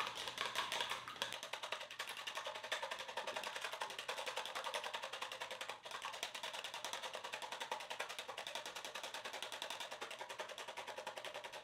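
Wire whisk beating eggs in a small plastic bowl: a fast, even run of clicks as the wires strike the bowl, several strokes a second.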